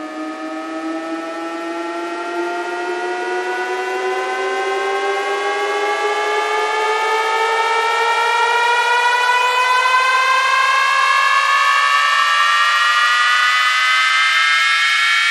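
Electronic sound-check tone: a slow rising sweep with many overtones, climbing steadily in pitch and getting louder throughout, like a DJ riser effect.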